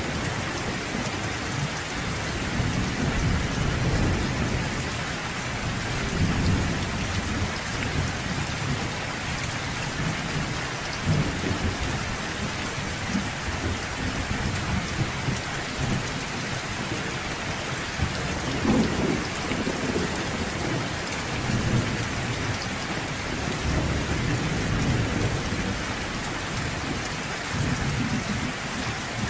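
Steady rain falling, with low rolling thunder that swells and fades every few seconds beneath it.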